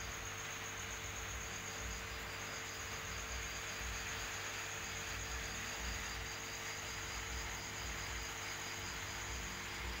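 Insects chirping in steady, rapid high-pitched trills, over a constant hiss and a low steady hum.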